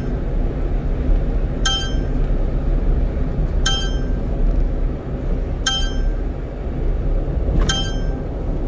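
Short electronic ding repeating every two seconds, four times, over the steady low drone of the 1-ton truck's engine and road noise in the cab.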